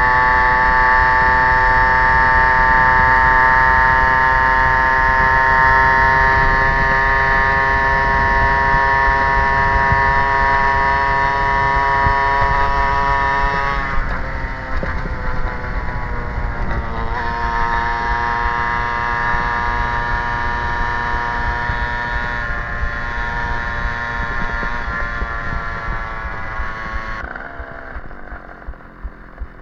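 Stadion S11 moped's 50cc two-stroke single-cylinder engine running while being ridden, its pitch easing down slowly. It dips briefly about halfway through and picks back up, then drops away near the end to a slow, uneven putter.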